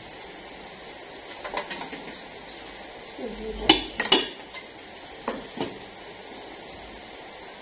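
A metal spoon knocking and clinking against a metal cooking pot as cooked rice is scooped out, a few scattered knocks with two loud ones about midway.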